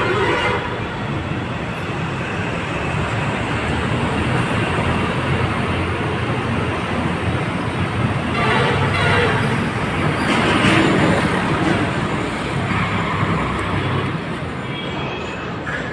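A heavy vehicle's diesel engine running steadily with a low rumble, with traffic noise around it.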